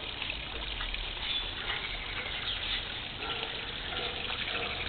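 Steady rushing background noise with a few faint bird chirps.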